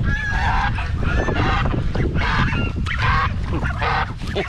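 A flock of domestic geese honking, many noisy calls repeating and overlapping.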